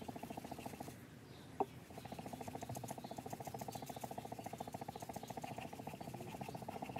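Steel blade of a Khmer sword stroked quickly back and forth on a whetstone: an even, rapid scraping rhythm. It pauses briefly about a second in with a single click, then carries on. This is the honing stroke that brings up the shine and edge.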